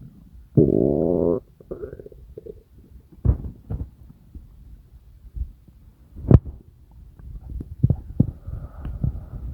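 Human stomach and intestines rumbling: a loud gurgling growl that rises in pitch, just under a second long, about half a second in, followed by smaller gurgles and scattered short pops.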